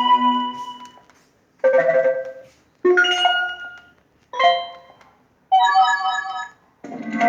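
Six short electronic notification chimes in a row, each a different tone, starting sharply and fading over about a second: Android notification sounds.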